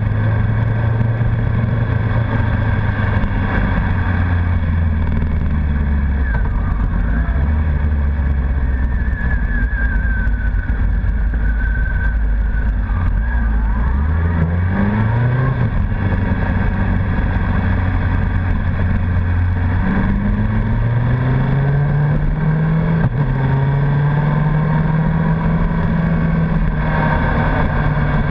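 Honda CBR1100XX Blackbird's inline-four engine heard onboard with steady wind rush: the note sinks as the bike slows, then climbs in steps through gear changes from about halfway and holds a steady higher note near the end.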